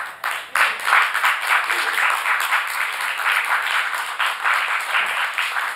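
Live theatre audience applauding, the clapping breaking out about half a second in and holding steady and loud.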